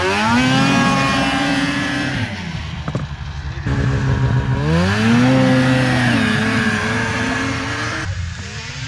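Snowmobile engines accelerating hard, twice. The pitch climbs steeply and holds for about two seconds, then drops. A second run climbs again near the middle, wavers, and fades out near the end.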